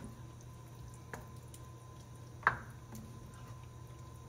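Wooden spoon stirring thick meat and tomato sauce in an enameled cast-iron pot: soft wet squishing, with a faint knock about a second in and a sharper knock about two and a half seconds in. A steady low hum lies underneath.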